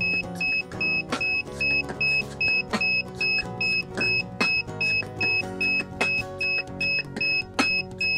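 Rapid electronic beeping from DJI Phantom 3 Professional drone gear: short, high beeps repeating steadily about two and a half times a second without a break. Background music with plucked notes plays underneath.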